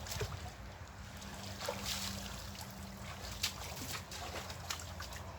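Water sloshing and trickling, with scattered small splashes at irregular moments.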